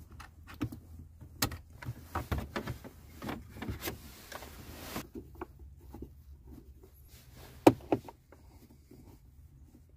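Scattered clicks, taps and knocks of plastic interior trim being handled as the Jeep Cherokee's center console is unscrewed and worked loose, with a short scraping hiss around the middle and one sharp click about three quarters of the way through.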